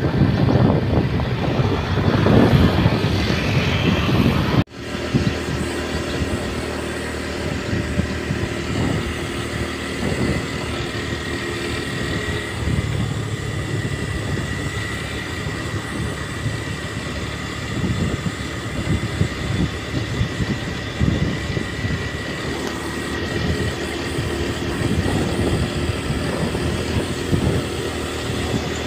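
A vehicle running steadily, heard as a continuous motor and road hum. The sound changes abruptly a little under five seconds in, from a rougher, louder noise to a smoother, steady hum.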